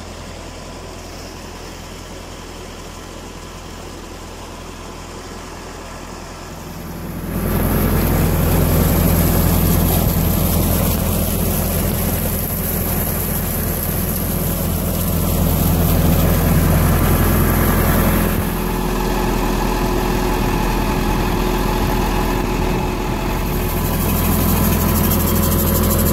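Massey Ferguson 375 tractor's four-cylinder diesel engine running steadily under load, driving a tube-well turbine pump by belt and shaft, with water gushing from the outlet pipe into a tank. The sound gets much louder about seven seconds in, eases a little later on, then rises again.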